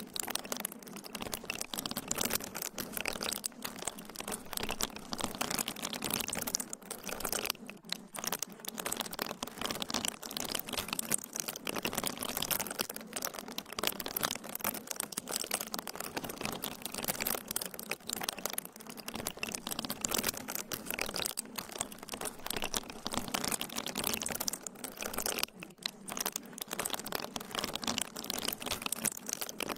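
Dense, continuous crackling and crinkling noise made of many fine rapid clicks, dipping briefly about eight seconds in and again near the end.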